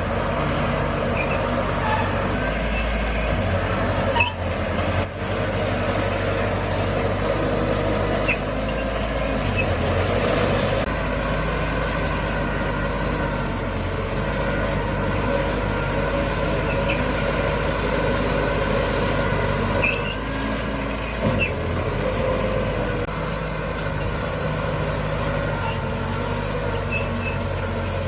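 Heavy diesel earthmoving machinery running steadily under load, with a few short metallic knocks and clanks about four to six seconds in and again about twenty seconds in.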